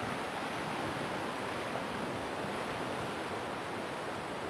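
Steady rushing of a swollen, fast-flowing flood river.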